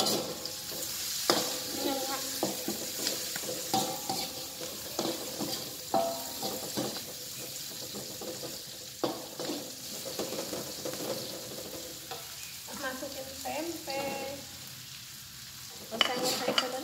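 Tempe and chilies sizzling in hot oil in a wok while a spatula stirs them, scraping and clacking against the pan again and again. A louder run of clacks comes near the end.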